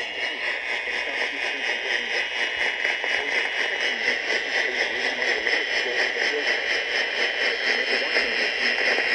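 Steady electronic static-like noise at the end of an Emergency Alert System broadcast, strongest in the upper middle with a fine regular flutter, cutting off shortly after.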